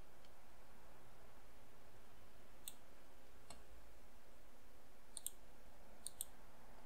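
A handful of faint computer mouse clicks, the later ones in quick pairs, over a low steady hiss.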